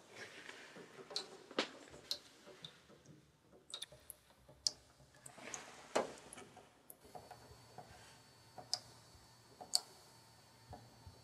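Scattered light clicks and taps at uneven intervals, about a dozen in all, over a low background; a faint steady hum comes in about seven seconds in.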